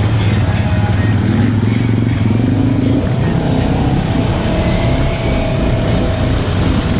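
ATV engine running hard under throttle, its pitch climbing as it revs up and then holding steady.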